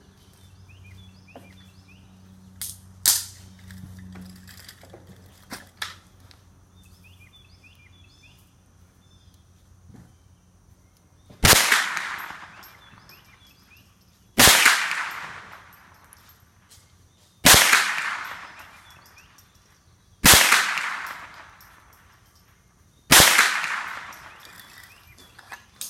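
Tippmann AR-22LR semi-automatic .22 LR rifle firing five single shots about three seconds apart, each a sharp crack with a ringing echo trailing off, the rifle feeding each round without a misfeed. A few sharp clicks come in the first six seconds before the shooting starts.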